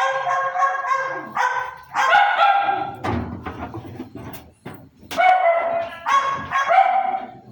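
A dog barking and whining in a string of about six drawn-out, pitched calls, with a short break in the middle.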